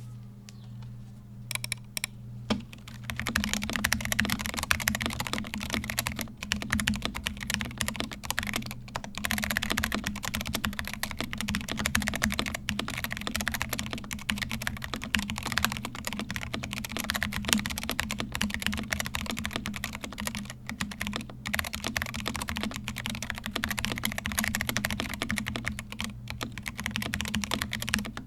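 Typing on a Noir Gear Timeless82 mechanical keyboard in stock, unmodified form. A few single key presses give way, about three seconds in, to fast continuous typing. A steady low hum runs underneath.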